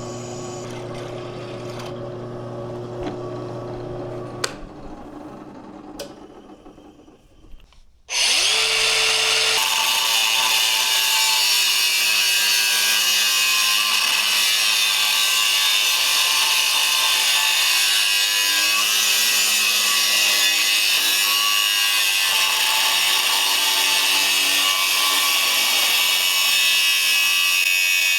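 A steady hum fades out with a couple of sharp clicks. About eight seconds in, a power tool starts abruptly and runs loud and steady, a hissy, high cutting or grinding noise.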